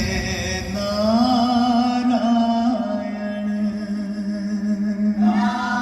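Music with a voice singing long held, chant-like notes over a steady drone; a new note comes in near the end.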